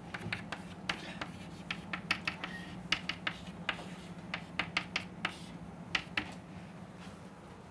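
Chalk writing on a blackboard: irregular runs of sharp taps and short scratches as the letters and symbols go down, stopping about six seconds in, over a steady low hum.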